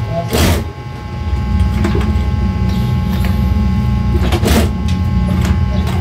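Juki industrial sewing machine running steadily, stitching a jacket placket. Two brief rustles of the fabric being handled, about half a second in and near the end.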